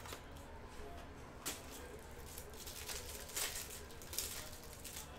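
Clear plastic wrapper around a pack of trading cards crinkling and tearing as it is opened and handled, in a few short rustles.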